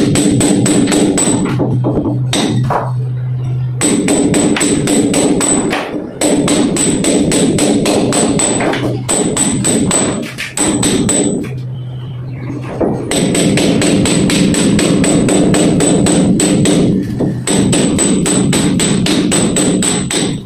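Background music with a fast, steady percussive beat over held tones, breaking off briefly a few times.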